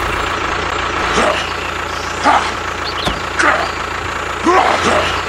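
Tractor engine idling steadily, with short high chirps about once a second over it.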